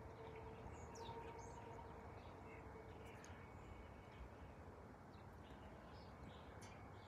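Near silence: faint outdoor background noise with a few brief, faint bird chirps, and a faint steady hum that fades out about halfway through.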